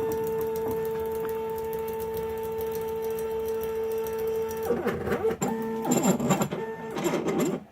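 Stepper motors of a CNC-converted mini mill driving its axes to the home switches. First a steady whine for about four and a half seconds, then several short moves whose pitch rises and falls as the motors speed up and slow down, cutting off just before the end.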